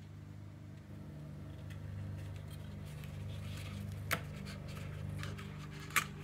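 Cardstock being handled and adjusted by hand: soft paper rustling and sliding, with two sharp clicks, one about four seconds in and one near the end, over a steady low hum.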